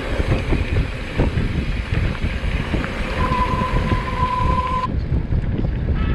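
Mountain bike descending a rough trail, with wind buffeting the microphone and the bike and tyres rattling over the ground. Past the middle a steady high squeal, brake squeal on the descent, holds for under two seconds.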